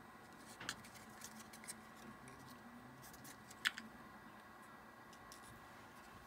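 Quiet handling noise of fingers wrapping and pressing a thin band of electrician's tape around a stack of plastic model plates: light rustles and a few small clicks, the sharpest about three and a half seconds in.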